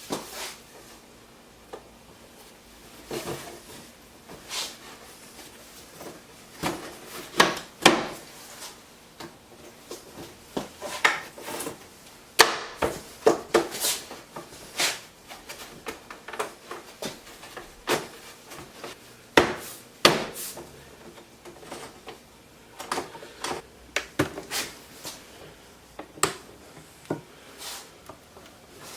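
Wooden boards and clamp bars being handled and set in place: irregular wood-on-wood knocks and clatter, some sharp, spread unevenly.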